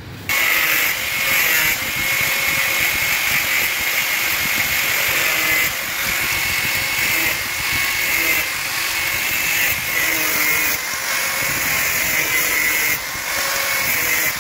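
Handheld angle grinder with a cutting disc grinding into a homemade drill bit of 8 mm steel rebar, cutting a notch so the bit clears its sawdust. A steady high whine starts abruptly and dips briefly several times as the disc works the metal.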